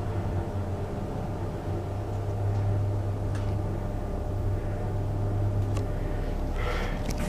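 A steady low mechanical hum, with a few sharp clicks and a brief rustle near the end.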